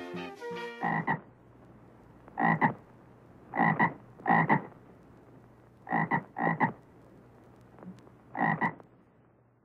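A frog croaking: about seven short croaks one to two seconds apart, some in close pairs, starting as music fades out about a second in.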